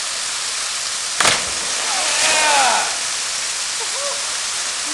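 Steady rush of a waterfall into its plunge pool. About a second in, a single sharp splash as a cliff jumper's body hits the water.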